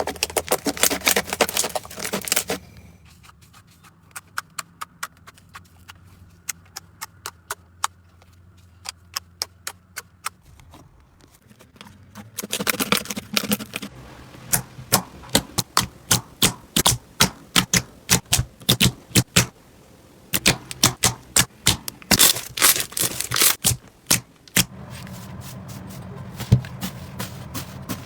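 Slime being squeezed and pressed by hand, giving runs of sharp crackling pops and clicks. They are dense at first, sparse from about three seconds in, and dense again from about twelve seconds in.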